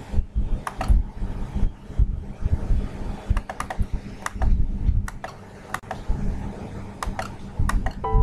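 Irregular clicks of a computer mouse, some in quick pairs, over a steady low hum and dull low thumps.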